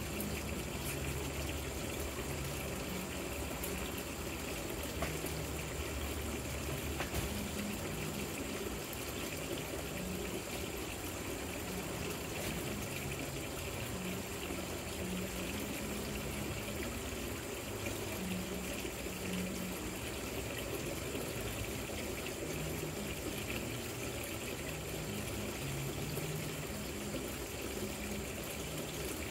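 Steady trickling and splashing of water running down an artificial rock patio fountain.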